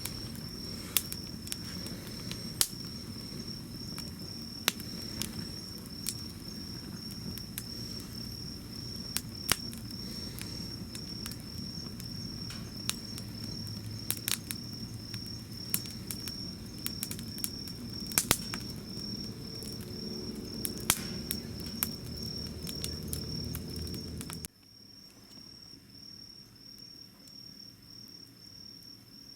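Wood campfire burning with a steady low rumble and sharp, irregular crackles and pops. Insects chirp in a fast, steady pulsing trill throughout. About 24 seconds in, the fire sound cuts off suddenly, leaving only the insects.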